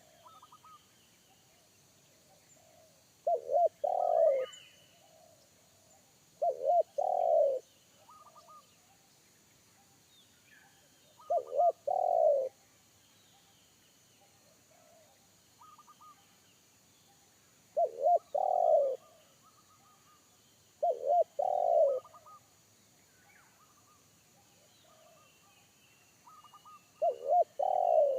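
Spotted dove (tekukur) cooing: six short phrases, each about a second long, repeated every few seconds. Faint chirps of small birds come in between.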